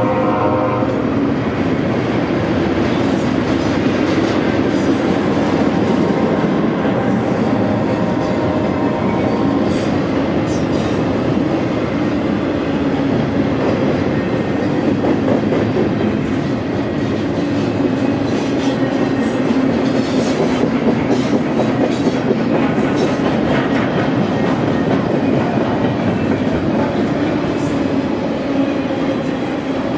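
Double-stack intermodal freight train's container well cars rolling past on the rails: a loud, steady rumble of steel wheels on track with scattered clicks and clacks.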